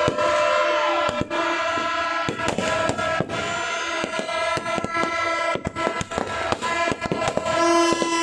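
New Year fireworks bursting: a dense, irregular series of sharp bangs and cracks, over steady held horn-like tones at several pitches.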